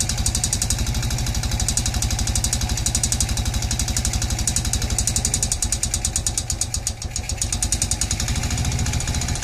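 An idling engine with a rapid, even metallic knocking. This is the unexplained knock being sought out, which is said to be louder when the engine is cold. The running dips briefly about seven seconds in.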